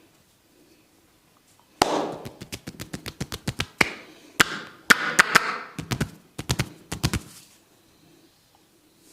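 Hands working a scalp in a head massage: a quick, irregular run of sharp cracks and taps mixed with rubbing swishes, starting about two seconds in and lasting about five seconds.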